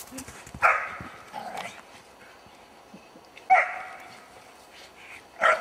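A dog barking three times, single sharp barks a couple of seconds apart.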